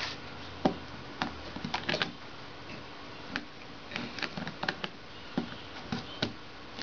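Irregular clicks and taps as a hard-sided wig carrying case is handled and its small brass clasp is worked, the sharpest knock about half a second in.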